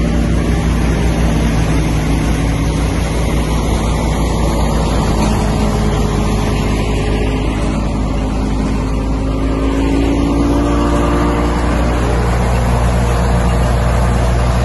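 Massey Ferguson 385 tractor's diesel engine running steadily at working speed, driving a wheat thresher.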